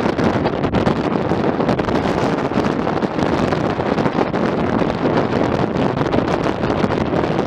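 Gale-force onshore wind, gusting at 40 to 50 mph, buffeting the microphone in a loud, unbroken rush.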